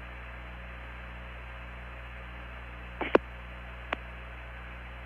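Steady hum and hiss of the Apollo 15 air-to-ground radio recording between transmissions, with a pair of sharp clicks about three seconds in and a smaller click a second later.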